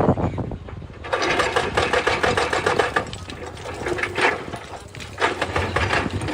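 A motor running with a rapid, even mechanical clatter that starts about a second in.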